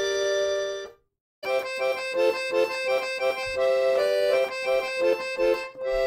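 Instrumental music: a held chord stops about a second in, and after a short gap a tune of short, quick notes begins.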